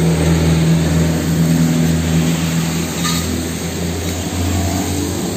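A steady, low engine hum, with a brief click about three seconds in.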